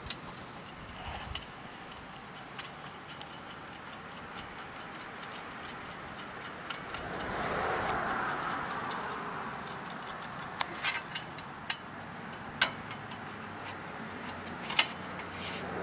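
Scattered sharp metal clicks and taps as twist-lock wall braces are fitted onto a pellet stove vent pipe, most of them in the second half. A vehicle passing swells and fades about halfway through.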